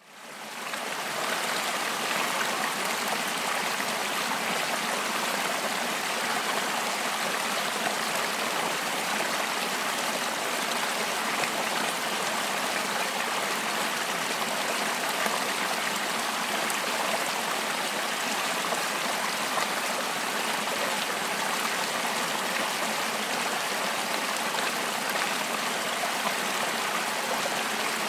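Rushing water of a fast-flowing river tumbling over rocks: a steady, even rush that fades in over the first second or two.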